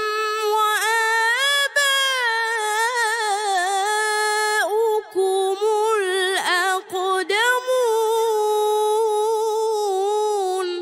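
A man reciting the Quran in the melodic tajweed style, drawing the words out in high, long held notes with quick ornamental turns and a few short breaths. The voice stops abruptly at the end and leaves a short echo fading behind it.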